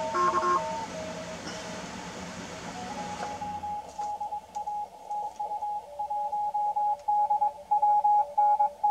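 Morse code (CW) from a Malahit-DSP software-defined radio receiver's audio as it is tuned. Hissy band noise with faint beeps gives way, about three seconds in, to one clear CW signal keying on and off at a steady pitch, with a fainter second signal lower in pitch.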